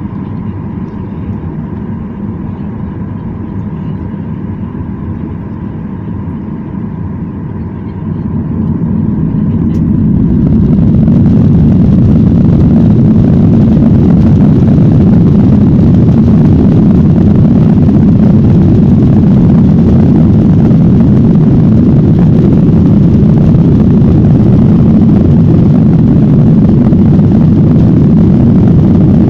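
Jet airliner's engines heard from inside the cabin: a steady hum with a faint whine, then about eight seconds in they spool up over two or three seconds to a loud, steady roar of takeoff thrust.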